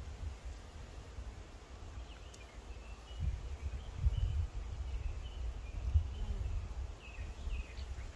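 Wind buffeting the microphone, a gusty low rumble that grows stronger about three seconds in. Faint, scattered high chirps are heard above it.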